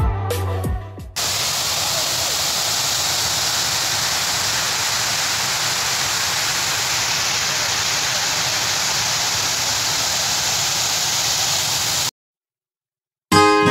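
Steady rush of water pouring over a dam's overflow weir, cutting off abruptly near the end. Electronic music plays for about the first second, and guitar music starts at the very end.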